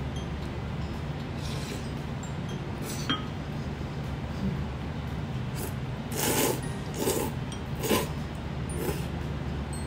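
A person slurping extra-thick tsukemen noodles in a run of loud slurps starting about six seconds in, after a light clink about three seconds in, over a steady low hum.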